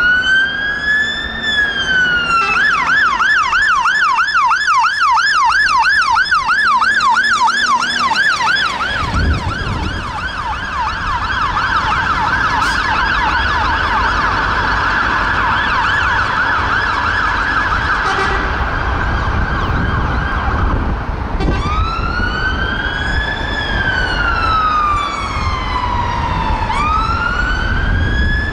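Sirens of a Scania P270 fire engine and a Renault Master ambulance on an emergency run. They start with a slow rising-and-falling wail, switch after a couple of seconds to a fast yelp of about four cycles a second, then to a still faster warble, and go back to slow wails about 21 seconds in. A heavy engine rumble joins about nine seconds in as the vehicles pass.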